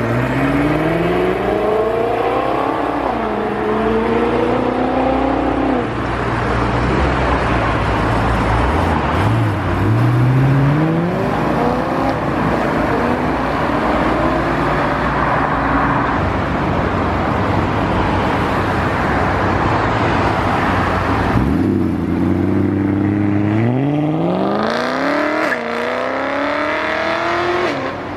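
Performance car engines accelerating away hard, each pitch climbing and then dropping at an upshift before climbing again, several times over. A steady low engine hum runs underneath, with a broad roar through the middle.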